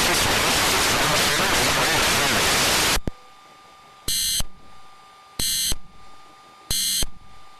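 Loud steady static hiss that cuts off abruptly about three seconds in. It is followed by three short buzzing data bursts about a second apart over a faint steady hum, in the pattern of an Emergency Alert System header.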